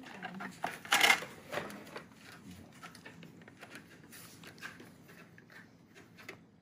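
Rubber-gloved fingers rustling and bumping close to the microphone: irregular soft ticks and scrapes, with one louder scrape about a second in.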